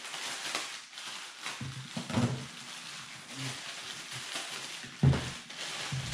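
Plastic wrapping crinkling and rustling as an air compressor is pulled out of it, with handling knocks, the loudest a thump about five seconds in and another about two seconds in.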